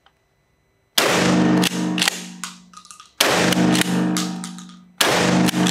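Three blasts from a 12-gauge Tokarev TX3 pump-action shotgun firing buckshot, about two seconds apart. Each is a sudden bang that rings on for about a second in the concrete indoor range.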